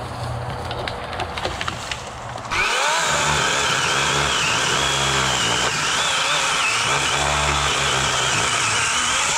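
Rustling and crunching through dry brush. About two and a half seconds in, a DeWalt 20V cordless electric chainsaw running a 14-inch Oregon bar and chain is triggered on: its motor whine rises quickly and then holds, wavering a little as the chain cuts into a small tree. It stops abruptly at the very end.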